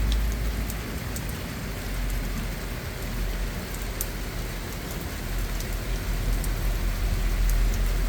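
Steady rain falling, an even hiss with a few scattered sharp drip ticks, over a continuous deep low rumble.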